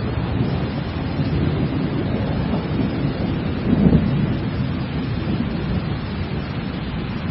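Thunderstorm: steady rain with low, rolling thunder, swelling louder about four seconds in.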